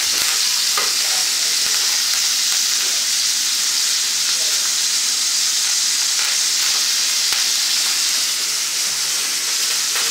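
Pork steak sizzling in hot olive oil in a cast-iron frying pan: a steady hiss with small crackles and spits.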